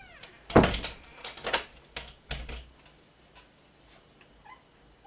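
A few knocks and thumps, most of them in the first two and a half seconds.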